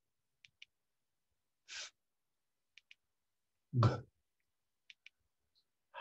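A man sounding out single letter sounds: a hissed "fff" about two seconds in, a short voiced "guh" near four seconds, and a breathy "h" at the end. Pairs of short clicks fall between them, about every two seconds.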